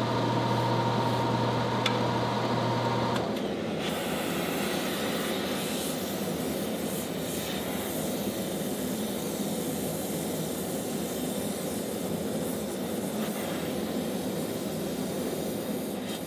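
Steady machine noise: a low hum with a higher whine over a steady hiss, until the hum cuts off about three seconds in, leaving only the steady hiss.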